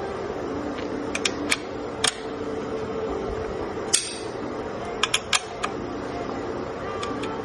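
Sharp clicks and clinks of tools and parts being handled during bicycle work, coming singly and in quick clusters of two or three, over faint background music.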